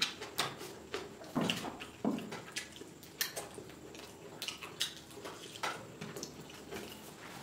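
Wet eating sounds from someone chewing a mouthful of rice and chicken curry eaten by hand: a string of irregular short smacks and clicks, a few a second.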